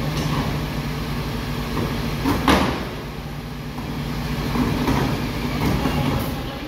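Garbage truck's diesel engine running steadily while its rear bin lifter lowers an emptied wheelie bin, with one loud metallic clank about two and a half seconds in and lighter knocks after it.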